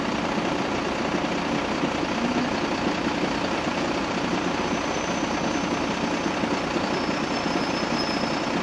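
Steady mechanical rumble of PKP EN57 electric multiple units at the station, with a faint high whine from about halfway in.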